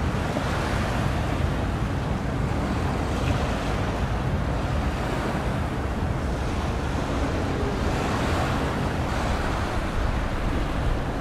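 Wind buffeting the microphone over the wash of sea waves: a steady, even noise with a heavy low rumble and no distinct events.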